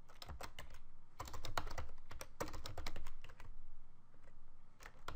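Typing on a computer keyboard: quick, irregular runs of keystroke clicks, pausing for about a second near the end.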